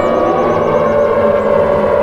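Civil defence warning siren sounding continuously, loud, several tones at once holding a nearly level pitch with a slight waver.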